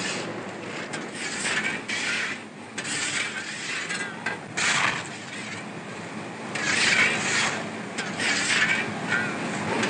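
Irregular bursts of harsh mechanical scraping and rasping noise, roughly one every half second to a second, over a constant hiss.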